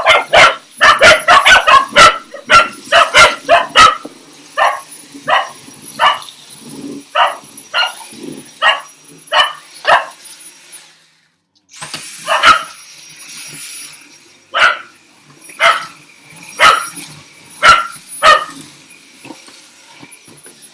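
Dogs barking at a vacuum cleaner, which they treat as a game: a rapid volley of barks for the first few seconds, then single barks about once a second, with a brief gap about halfway through.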